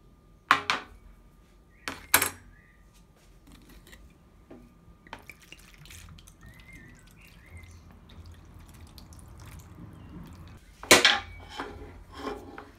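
A plastic tray and a rusty sickle knock down onto a workbench, then vinegar is poured from a glass bottle into the tray over the blade, splashing and trickling quietly. Near the end comes a louder clatter, then a smaller one.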